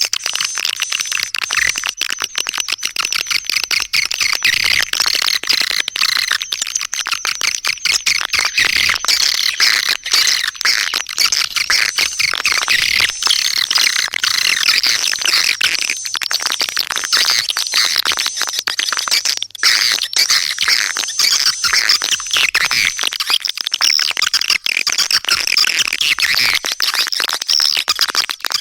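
Swiftlet lure call: a dense, continuous chorus of high chirping and twittering swiftlet calls, with many sharp clicks among them, played as a call track to attract swiftlets to nest.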